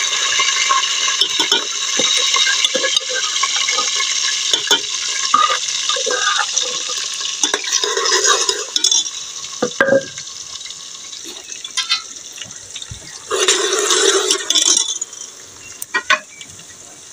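Chopped onions sizzling in hot oil in a metal pressure cooker pot, with a metal spoon clinking and scraping against the pot as they are stirred. The sizzle is loudest at first, dies down about nine seconds in, and rises again briefly a few seconds before the end.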